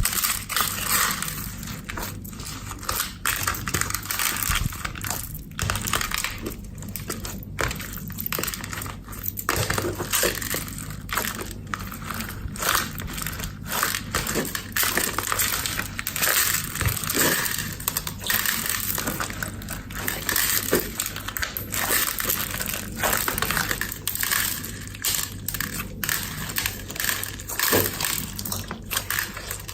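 Clear slime being worked and mixed by hand, giving a continuous run of irregular crackles, pops and squishes.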